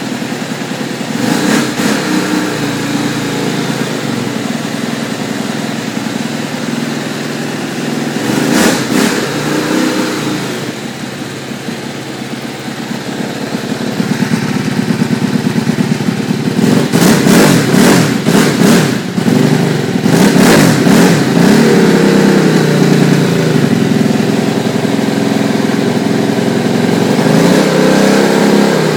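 Aprilia SXV450 V-twin engine running on a cold start, idling with throttle blips: short revs about a second in and near nine seconds, a cluster of revs from about 17 to 21 seconds, and one more near the end.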